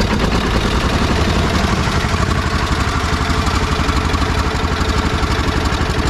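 DT-14 tractor's single-cylinder diesel engine idling, a steady pulsing beat.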